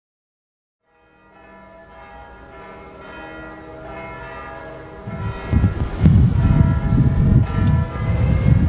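Bells ringing, fading in from silence about a second in and growing louder. About halfway through, a loud, gusting low rumble comes in and covers them.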